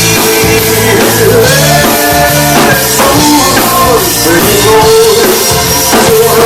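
Live rock band playing loudly with drum kit and guitar, a song running on between sung lines.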